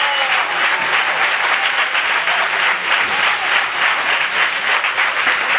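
Crowd of spectators clapping, a dense, steady applause.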